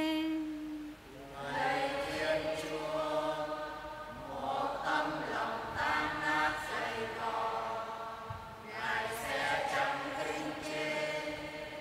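A solo woman's voice holds the last note of the psalm verse briefly at the start. Then the congregation sings the responsorial psalm refrain together in Vietnamese, a slow unison chant in long held phrases with short breaths between them.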